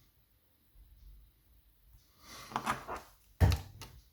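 Lever mortice lock and its metal parts being handled on a work surface: a short scrape or rattle, then one sharp knock about three and a half seconds in, followed by a couple of light clicks.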